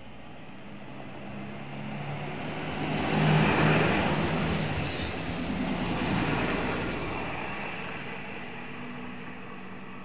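Koleje Dolnośląskie diesel railcar passing through a station: engine drone and wheel-on-rail noise grow to their loudest about three to four seconds in as it goes by, then fade as it runs away down the line.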